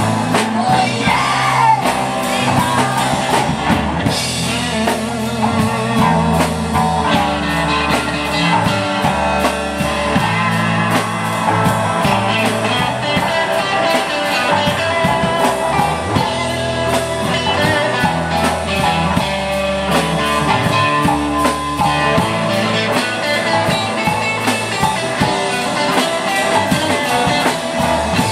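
Live rock band playing: electric guitars and a drum kit, with a male lead vocalist singing.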